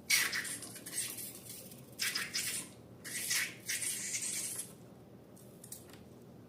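Short bursts of hissy, rustling handling noise from slime-making work, four or five in a row, stopping a little before five seconds in.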